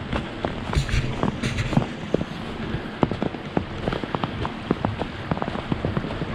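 A winter river running, a steady rushing of water with many small irregular ticks and splashes.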